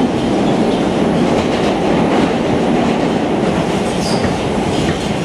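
Steady running noise of a New York City subway car in motion: wheels on the rails and the car's body, heard from inside the car. A brief high squeak sounds about four seconds in.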